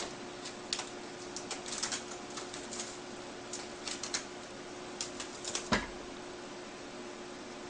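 Wicker basket crackling and clicking as a kitten climbs over its edge, over a faint steady hum, with one louder thump a little before six seconds in.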